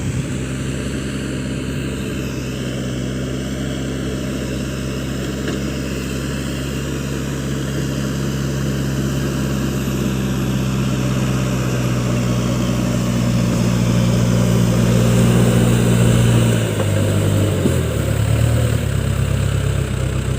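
Case backhoe loader's diesel engine running steadily. It gets a little louder, then its pitch drops and wavers near the end.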